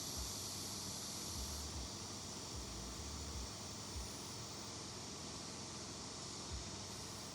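Steady outdoor background hiss with a high, even band that weakens a little under two seconds in, and scattered low thuds.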